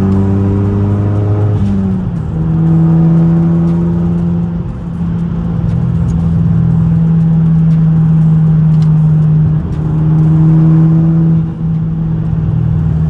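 Ford Focus ST's 2.0-litre turbocharged four-cylinder engine running at steady revs while being driven. The engine note drops about two seconds in and dips briefly a few more times.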